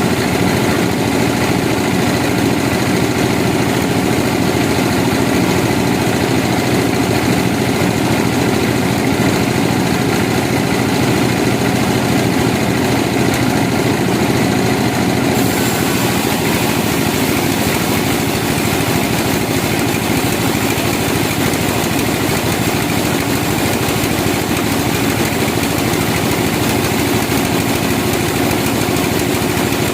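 A sawmill's engine running steadily, with no pauses or revving.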